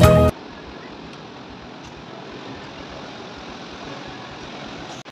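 Background music stops abruptly just after the start, leaving a steady, even rushing background noise with no distinct events.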